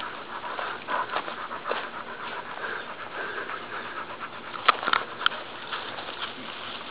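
A pit bull panting steadily while climbing a tree, with a few sharp clicks a little under five seconds in.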